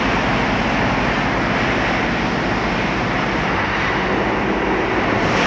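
Steady rushing noise of a touchless automatic car wash running.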